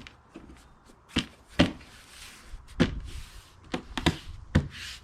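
Housing cover of an inverter generator being refitted by hand: a series of sharp knocks and clicks with short scraping and rubbing sounds between them.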